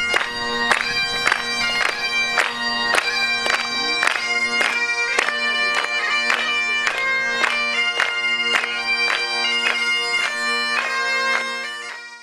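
Bagpipes playing a tune over a steady drone, the melody broken by quick grace-note flicks. The sound fades out near the end.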